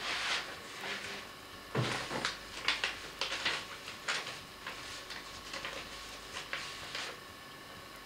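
Irregular rustles, scrapes and light clicks of someone handling a sheet of paper and other small objects. A duller knock comes about two seconds in, and the rustling thins out in the last few seconds.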